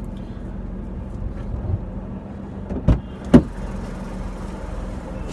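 Steady low hum of a car idling, heard from inside the cabin, with two sharp thumps about half a second apart around three seconds in.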